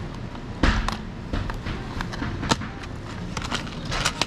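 Metal engine parts and tools being handled on a workbench: a few sharp clicks and knocks, the loudest about two-thirds of a second in and a pair near the end, over a steady low background hum.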